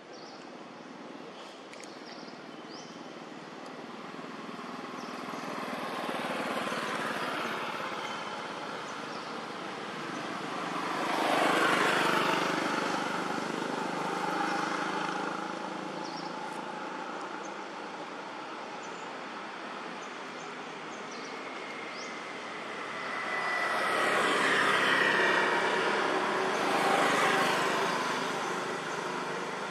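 Road vehicles passing by one after another, each swelling and fading over a few seconds. The loudest passes come about 11 seconds in and again near the end, with a steady whine joining about 22 seconds in.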